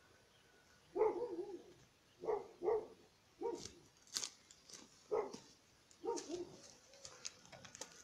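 Birds chirping, with short high notes scattered through the second half. A run of louder, short, lower-pitched animal calls comes roughly once a second.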